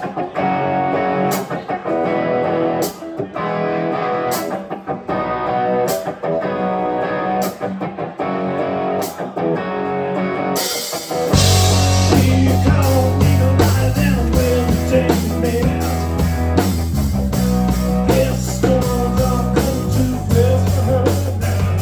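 Live rock band: a guitar plays rhythmic chords on its own at first, then about eleven seconds in bass and drums come in and the full band plays on.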